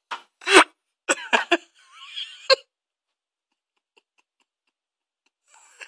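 A person laughing in short, stifled bursts for the first two and a half seconds, then quiet. A brief soft rustling noise comes near the end.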